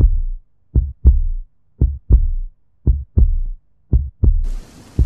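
Heartbeat: slow, deep lub-dub double thumps, about one pair a second, five pairs in all. A faint hiss comes in under it near the end.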